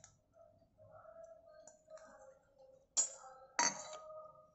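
A small steel bowl clinking against a glass serving bowl, two sharp clinks about half a second apart near the end, each ringing briefly, after a few faint light taps.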